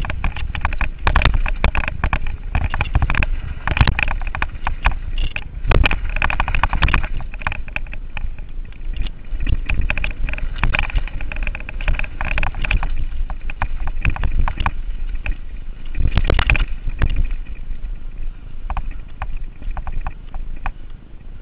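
Giant Reign full-suspension mountain bike descending a rough dirt singletrack at speed: constant rattling and clattering of the bike over the bumps, over a low rumble, with heavier knocks now and then and a calmer stretch near the end.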